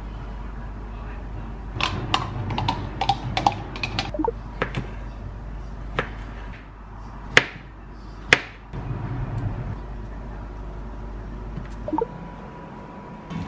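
A chef's knife cutting kiwi on a plastic cutting board: a quick run of taps about two seconds in, then a few single sharper knocks, over a low steady hum.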